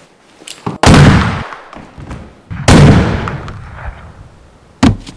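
Two loud gunshots about two seconds apart, each ringing out and fading over about a second, then a shorter, sharp crack near the end.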